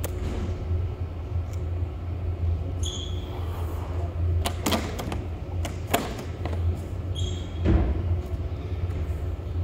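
Steady low hum of room noise, with a few sharp knocks and thuds around the middle, the loudest a little before the end, and two brief high squeaks.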